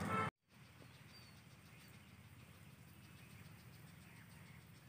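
Faint outdoor street background that cuts off abruptly about a third of a second in, then near silence with a faint low hum and a few faint bird chirps.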